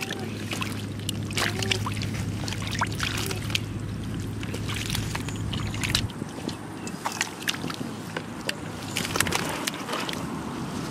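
Squelching and splashing in wet mud and shallow water, with many short wet smacks, as hands, feet and a plastic basket work through a muddy puddle. A low steady hum underneath stops about six seconds in.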